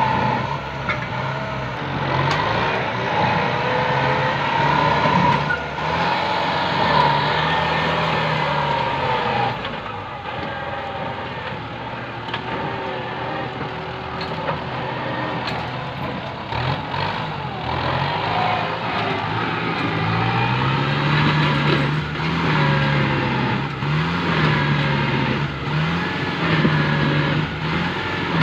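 Kubota tractor's diesel engine working under load while pulling a disc plough over rough ground, its pitch rising and dropping. Near the end the engine speed swings up and down every second or two.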